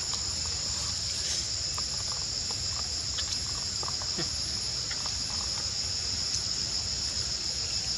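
Steady high-pitched insect chorus droning without a break, with a low rumble underneath and a few faint clicks.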